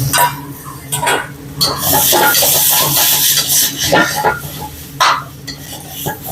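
A metal utensil stirring and scraping food in a pan, with sharp clinks and knocks and a loud hiss of frying from about one and a half to four seconds in.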